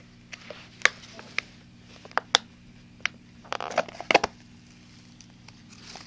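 Thin plastic cup being handled: scattered sharp clicks and taps, with a short crinkling rustle about three and a half seconds in and a quick cluster of clicks just after.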